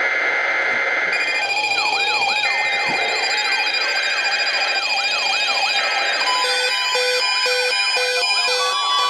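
NOAA Weather Radio emergency alert tones: SAME header data bursts overlapped by several warbling, siren-like electronic tones and beeps, with more beeping tones joining about six seconds in. The overlapping tones make a garbled jumble, the kind of alert the National Weather Service's broadcast message handler put out while it was malfunctioning.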